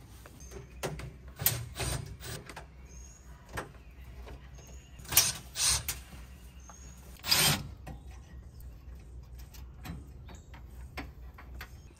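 Work-handling noise: scattered light clicks and knocks, with three short scraping or rustling bursts about five, five and a half and seven and a half seconds in, over a low steady hum.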